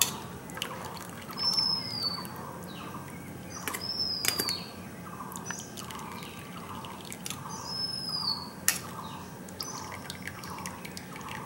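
A bird calling repeatedly, a short high whistle that slides downward, sounding about every three seconds over a faint run of lower notes about twice a second. A steel ladle clicks and scrapes against a steel strainer as chhena curds are pressed to drain the whey.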